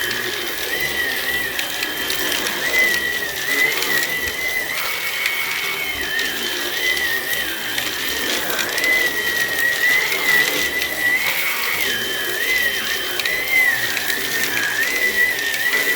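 Hoover Onepwr Blade cordless stick vacuum running on full speed with its main power head cleaning stairs. Its high motor whine wavers up and down in pitch.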